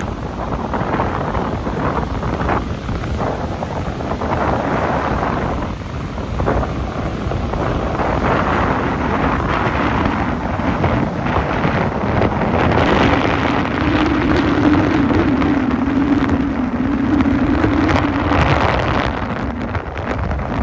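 Strong wind buffeting the microphone over the rush of high surf. A low, wavering hum joins about two-thirds of the way in and fades near the end.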